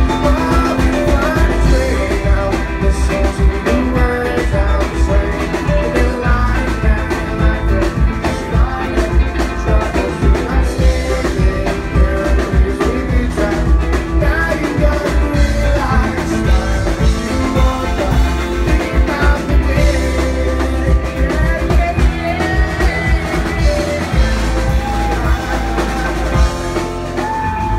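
Live rock band playing loudly: electric guitar over bass and drum kit, in a steady groove.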